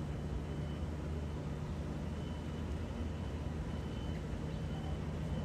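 Steady low electric hum of an E300-class electric locomotive slowly pulling a freight train out of a station, beside a stationary electric multiple unit. A faint high tone comes and goes.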